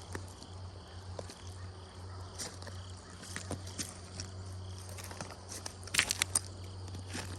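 Footsteps crunching on creek gravel and loose chert, with scattered stone clicks and a quick run of four or five sharp rock-on-rock knocks about six seconds in, the loudest sound. An insect chirps faintly throughout, about twice a second.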